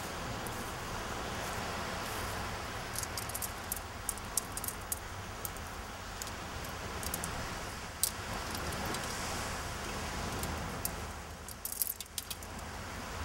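Surf washing on a beach as a steady background, with a scatter of small sharp clicks and jingling rattles from something handled close by. They come in clusters, about three seconds in, around eight seconds, and most densely near the end.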